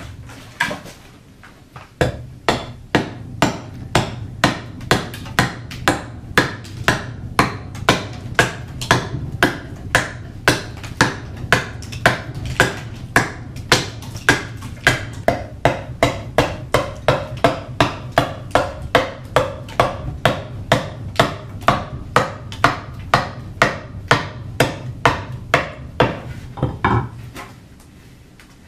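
Carving axe hewing the outside of a green black walnut bowl blank against a wooden chopping block. It strikes in a fast, even rhythm of about two and a half blows a second, starting about two seconds in and stopping shortly before the end.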